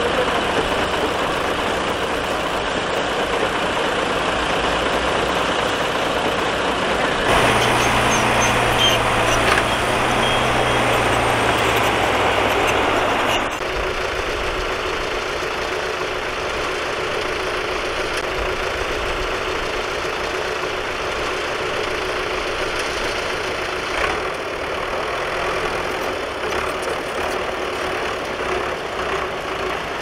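Diesel engines of a small crawler bulldozer and a Hyundai dump truck running as the dozer tows the stuck truck. The sound jumps louder and deeper about seven seconds in, then drops back abruptly to a steadier, quieter running sound about thirteen seconds in.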